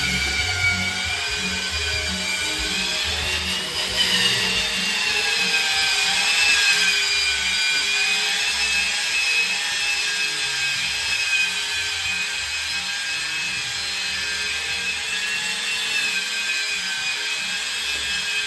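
Power sander running on Sheetrock, a steady motor whine that wavers slowly in pitch, over the uneven rasp of sanding.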